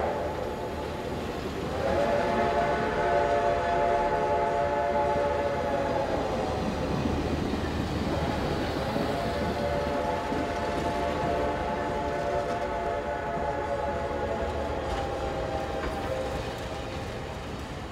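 Passenger cars rolling past with steady wheel-on-rail rumble, while the locomotive ahead sounds two long multi-note chords. The first lasts about four seconds; the second, about eight seconds long, slowly fades.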